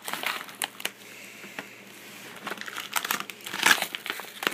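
Packing tape and cardboard crinkling and tearing as a heavily taped shipping box is pulled open by hand, in irregular crackles that are loudest a little after three seconds in.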